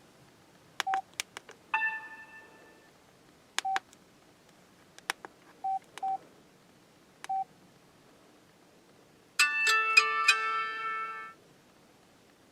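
Samsung Convoy 4 flip phone being operated: sharp button clicks, several with a short keypad beep, and a brief chime about two seconds in. Near the end a short multi-note phone tone plays for about two seconds, then stops.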